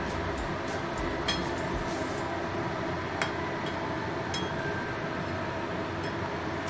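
Steady rushing of a gas stove burner under a simmering curry, with three light clinks of a metal spatula against the aluminium kadai as the potatoes are stirred.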